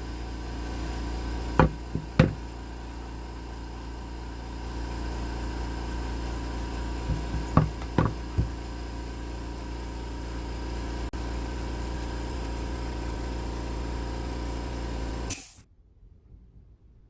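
A woodworking power saw running steadily, with a few sharp knocks as the wood is worked. It shuts off suddenly near the end.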